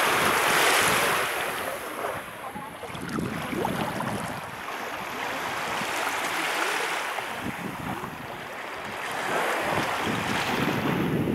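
Small waves washing in and out over coarse sand at the water's edge, the hiss swelling and easing a few times, with wind rumbling on the microphone.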